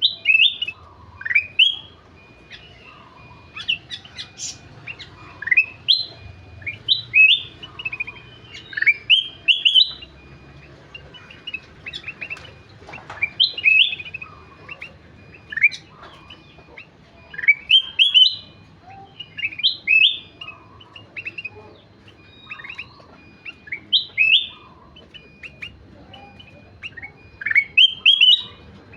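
Kutilang emas bulbul singing vigorously: short phrases of quick rising whistled notes, repeated every second or two.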